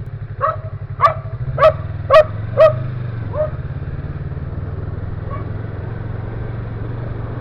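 A dog barking six times in quick succession, about two barks a second, over the steady running of a vehicle's engine.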